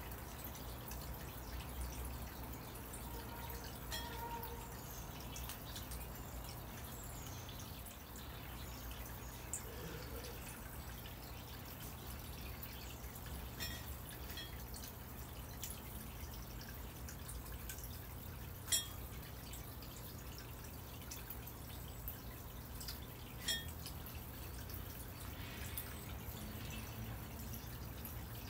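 Northwestern crow pecking peanuts from a ceramic dish: scattered sharp taps of its beak on the dish and the nuts, a few seconds apart, over a low steady hum.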